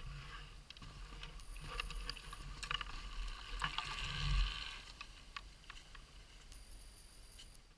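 Footsteps and scuffing in deep snow with scattered clicks and knocks as a snow bike is handled and pushed by hand, with a low rumble swelling briefly about four seconds in.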